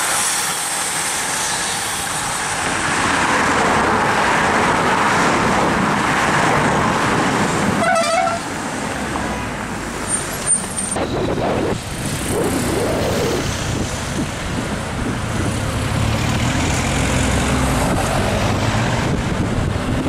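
A bunch of road-racing bicycles rushing past, tyres and freewheels hissing. About eight seconds in there is a short car horn toot, and then race team cars drive past, engines and tyres running.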